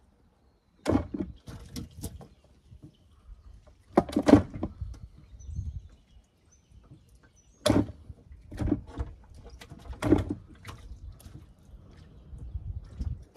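Scattered knocks and bumps from a boat's live well as crappie are fished out of it by hand, about half a dozen irregular thuds with the loudest about four seconds in.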